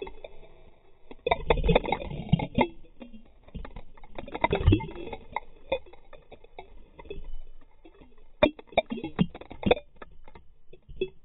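Water sloshing and splashing around a camera held at and just under the surface, heard muffled through its waterproof housing, with irregular knocks and bumps near the end.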